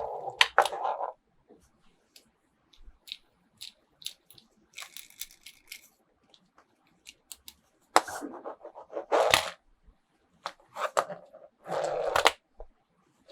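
Toy packaging being opened and handled: several bursts of rustling and tearing wrapper, with small sharp clicks and taps between them.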